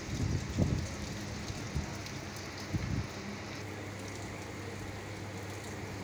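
Steady rain hiss, with a few brief low gusts of wind buffeting the microphone in the first three seconds.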